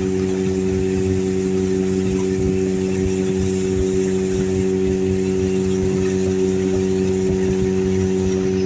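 Motorboat engine running steadily at a constant pitch, with an even hiss of water and wind over it.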